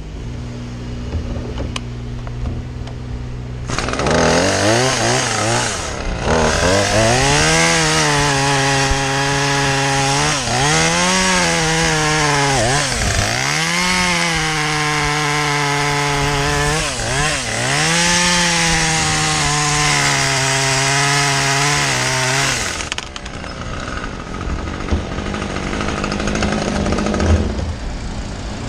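Chainsaw revved up about four seconds in and held at full throttle for roughly twenty seconds while cutting through a limb. Its pitch dips and recovers several times as the chain loads up in the wood. Before and after the cut a quieter engine idles steadily.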